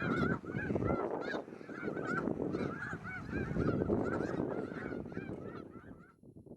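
A large flock of geese calling, many short honks overlapping in a continuous chorus that fades out near the end.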